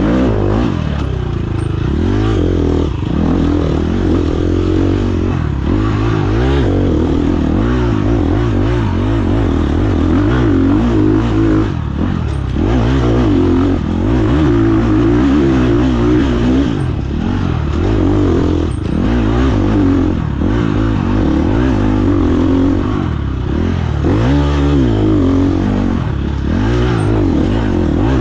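Dirt bike engine heard onboard at race pace, the revs repeatedly climbing and dropping as the rider works the throttle and gears over rough off-road terrain. Short knocks and clatter come from the bike over the bumps.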